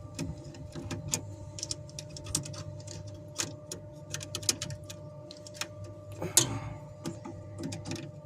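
Screwdriver working the terminal screws of a three-phase power contactor as supply wires are fitted and tightened: irregular small clicks and ticks, with a brief scrape a little after six seconds, over a steady low hum.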